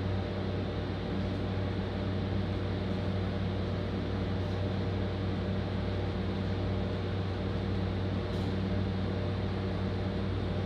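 Steady low hum and drone inside a train carriage as the train sits at, then moves out of, a station.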